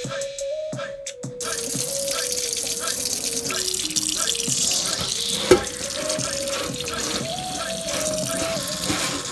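Tap water running in a sink, splashing onto boiled pig's feet in a colander, starting about a second in, over background music with a steady beat. A single sharp knock about halfway through.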